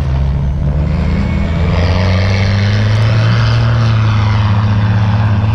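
Off-road vehicle engine running steadily under load. About two seconds in it picks up slightly in pitch and loudness, and a rushing noise joins it.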